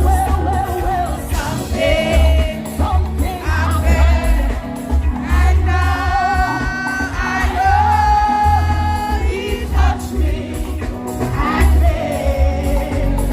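Gospel music: a voice sings long, wavering notes over a band with a heavy bass.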